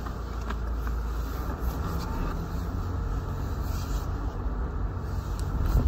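Steady low rumble of road and engine noise heard inside a car's cabin.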